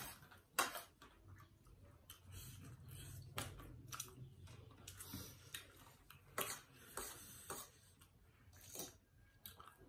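Quiet eating sounds: spoons and forks clicking against plates of noodles, a scattered tap every second or so.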